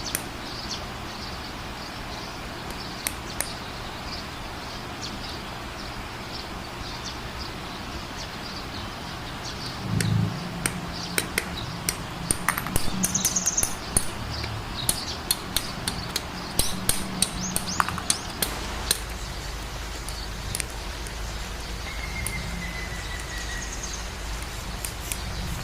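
Sharp plastic clicks and snaps from a Gunpla model kit being built, parts cut from the runners and pressed together, coming thick and fast after a dull knock about ten seconds in.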